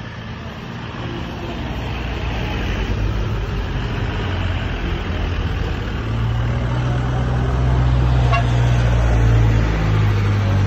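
Street traffic: a motor vehicle's engine runs with a low steady hum over road noise, growing louder and loudest in the last few seconds as it passes close.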